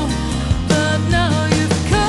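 Background music: a melody with bending pitch over a steady bass line and drum hits.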